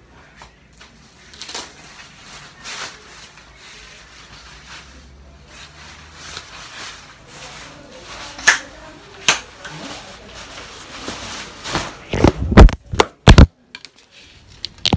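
Handling noise from a phone camera being moved about, with scattered clicks, then several loud bumps near the end as the phone is knocked over and falls.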